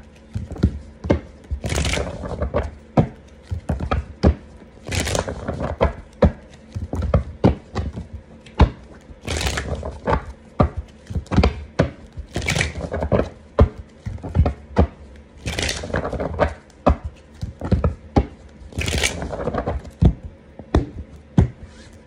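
A deck of tarot cards being shuffled by hand: a quick, uneven run of card taps and slaps, with a longer swish every few seconds.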